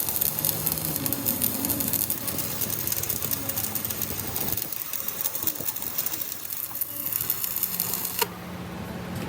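Metal lathe running with a cutting tool on the work: a dense, rapid clatter with a lot of hiss, which stops suddenly about eight seconds in, leaving a quieter steady hum.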